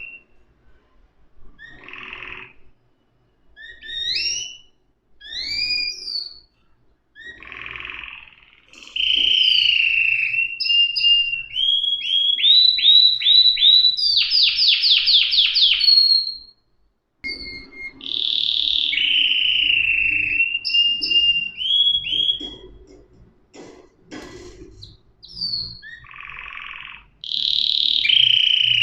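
Domestic canary singing a long, varied song: whistled notes that glide up and down, buzzy rolls, and fast trills of rapidly repeated notes about halfway through, with a brief pause just after.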